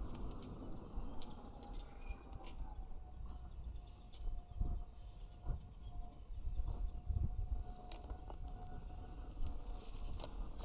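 A rapid, continuous run of short high chirps, with a faint steady hum joining about two seconds in and scattered low thumps.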